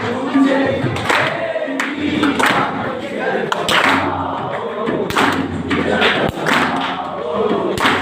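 A group of voices singing together, with a sharp thump about once a second, like a beat kept by hand or foot.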